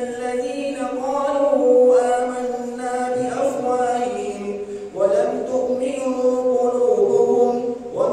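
A male qari reciting the Quran aloud in a melodic, chanted style during taraweeh prayer. He holds long notes, pauses briefly for breath about five seconds in, then begins a new phrase.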